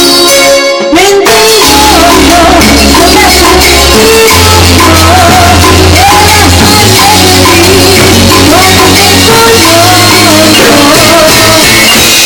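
Latin dance music played loud by a band: a steady deep bass line and shaker percussion, with a melody line that bends up and down over them.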